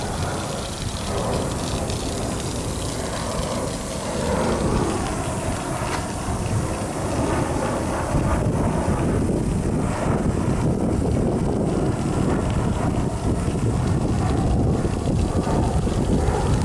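Jet airliner passing low overhead with its landing gear down, a steady engine rumble that grows a little louder about halfway through, with wind buffeting the microphone.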